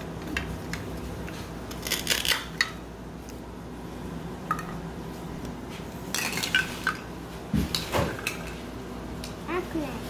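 Hard plastic toy fruit and vegetable pieces clacking and knocking together as they are handled, in scattered clusters of sharp clicks.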